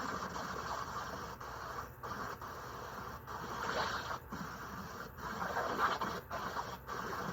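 Hurricane wind rushing steadily, heard through a video call's audio, which drops out briefly about seven times.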